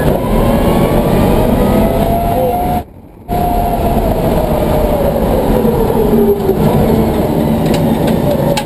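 Twin 11-inch Warp DC electric motors of a converted BMW M3 race car whining under way over heavy road and tyre noise. The whine holds its pitch, then falls steadily over a few seconds as the car slows. The sound drops out briefly just under three seconds in.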